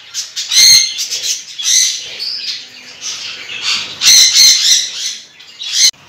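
Caged parrot-family birds squawking: loud, harsh calls come several times, with softer chattering between them.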